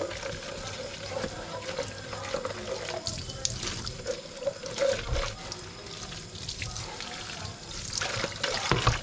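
Kitchen tap running into a stainless steel sink while a plastic food container is rinsed under it, water splashing off the container.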